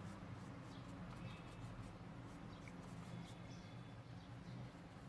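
Faint, soft scratching and rubbing of graphite being blended on drawing paper, over a low steady room hum.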